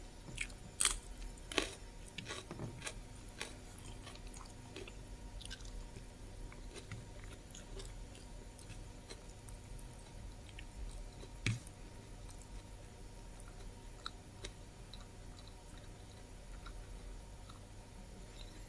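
Mouth sounds of someone chewing food, made up of small wet ticks. There are a few sharper clicks or crunches about one and two seconds in and another about eleven seconds in.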